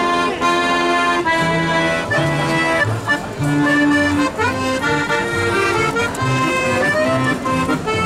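Piano accordion playing a tune: a melody over a bass accompaniment whose notes change about every half second.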